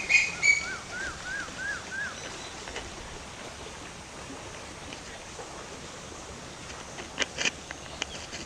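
Birds calling: a loud repeated call ends just after the start, followed by a run of six short up-and-down notes. A steady outdoor hiss lies under everything, and a few sharp clicks come near the end.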